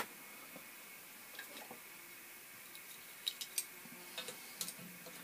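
A few faint, sharp metal clicks and taps, clustered in the second half, as steel parts of a Quorn tool and cutter grinder's workhead are handled and adjusted by hand.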